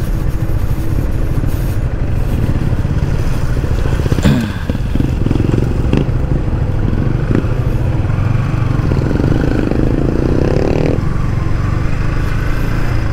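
Yamaha MT-15's 155 cc single-cylinder engine heard while riding in traffic over a heavy steady low rumble. The pitch drops once about four seconds in, then the engine note rises from about nine seconds and drops off sharply near eleven seconds.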